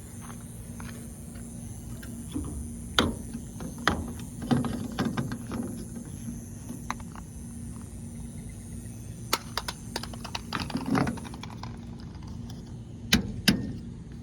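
Scattered knocks, clicks and clatter, like hard objects or hardware being handled, over a steady low hum, with two sharp knocks near the end.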